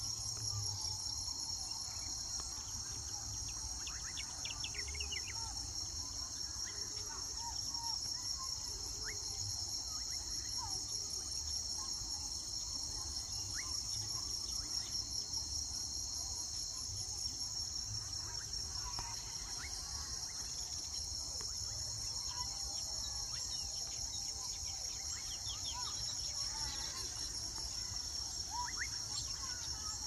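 Steady, high-pitched trilling chorus of insects, with faint, short bird chirps scattered through it that come more often in the second half.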